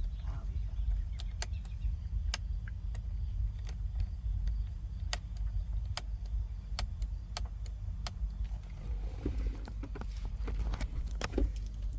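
Steering-wheel control buttons clicking as they are pressed repeatedly, about twenty sharp clicks at irregular intervals, while the volume fails to respond because of a wiring fault with the aftermarket head unit. A steady low rumble lies underneath.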